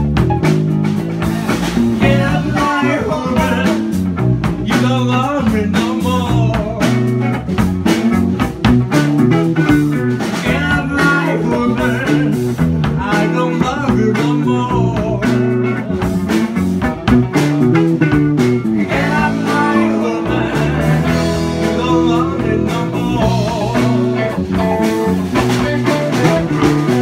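Live blues-rock band playing: guitar with wavering, bent melody lines over steady bass notes and a drum kit.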